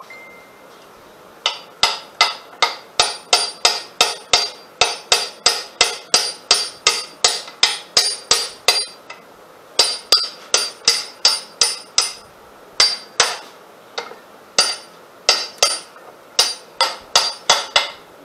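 Rapid hammer blows on steel, about three a second, each with a short metallic ring, as the tractor's rear axle is struck to drive it out of its housing. They go on in long runs, with a pause about halfway and a few shorter breaks near the end.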